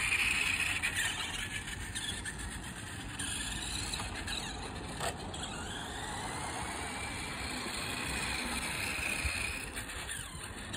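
Nikko 1/5 scale radio-controlled motorcycle's electric motor whining, its pitch rising and falling repeatedly as the bike speeds up and slows, over a steady low rumble.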